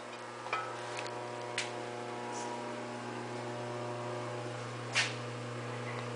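A steady low electrical hum with a few faint clicks and a short rustle about five seconds in.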